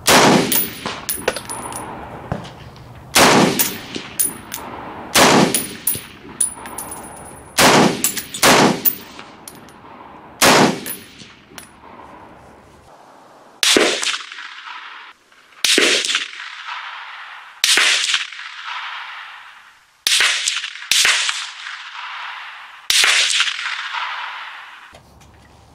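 Springfield M1A SOCOM semi-automatic .308 rifle fired about a dozen times in steady succession, one to three seconds between shots, each shot trailing off in echo.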